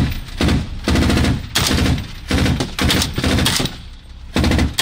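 Automatic rifle fire in about seven short bursts of rapid shots, fired through the gun port of an armoured vehicle and heard from inside the cabin.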